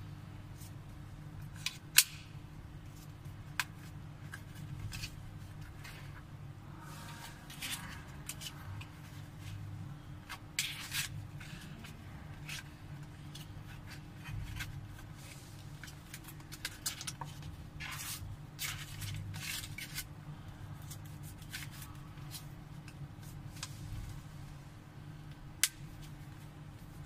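Pop-up aluminium-and-leather card holder wallet being worked by hand: scattered sharp clicks of its push-button card ejector and the cards snapping out and back in, with short rustles of cards and leather, over a steady low hum. The loudest click comes about two seconds in, another strong one near the end.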